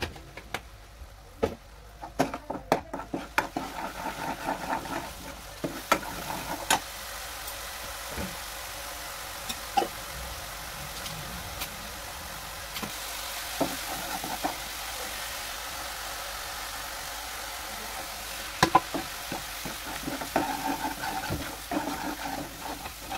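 Masala paste sizzling in oil in a non-stick kadhai while a steel ladle stirs it, knocking and scraping against the pan. There is a quick clatter of ladle knocks in the first few seconds and again near the end, with a steady sizzle in between.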